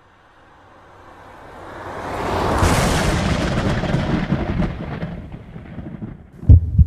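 A rumbling, thunder-like noise that swells up over about two seconds, peaks and then slowly fades away, followed near the end by two quick low thumps.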